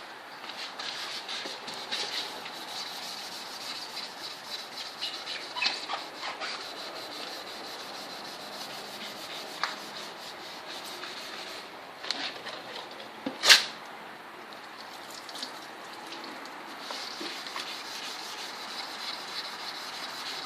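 Wet 400-grit sandpaper rubbed back and forth by hand over a plastic headlight lens: a steady scratchy rubbing with small squeaks, taking off the yellowed, oxidised outer layer. About thirteen seconds in, one sharp, loud squeak stands out above the rubbing.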